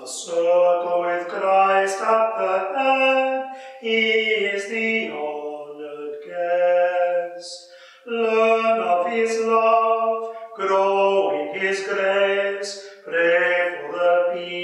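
A man's voice singing a slow hymn, in phrases of two to three seconds with short breaks between them.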